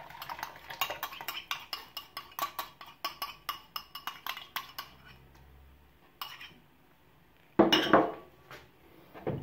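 Spoon clinking and scraping against a bowl and a stainless-steel pressure cooker as crushed tomatoes are scooped in: a quick run of clinks, about four or five a second, for the first few seconds, then a short louder burst near the end.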